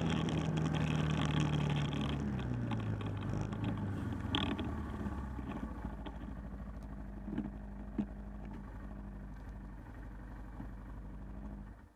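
ATV engine slowing, its note falling as the machine rolls to a stop with wind on the microphone, then idling steadily. Two short clicks sound during the idle, and the engine sound drops away right at the end.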